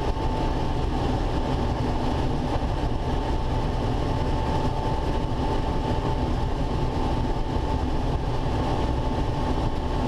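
Combine harvester running steadily while harvesting corn, its corn head taking in the rows: a constant machine noise with a steady high whine over it.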